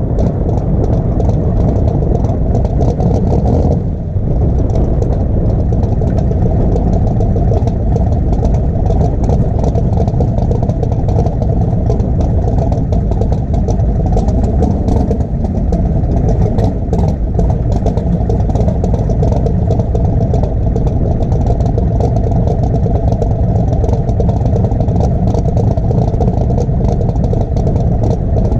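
A drag car's engine running steadily as the car rolls along at low speed, a heavy low rumble throughout, with a brief dip about four seconds in.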